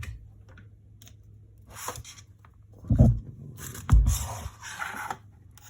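Handling noises on a repair bench: two dull knocks about a second apart near the middle, followed by a short scraping rustle, with a few faint ticks around them.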